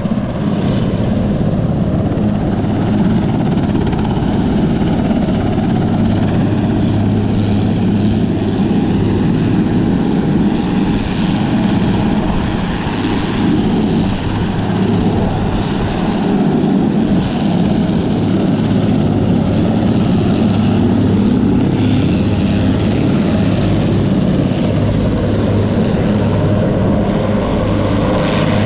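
Sikorsky S-61 helicopter running on the ground with its rotors turning, its twin turboshaft engines and rotor making a steady, loud, low drone.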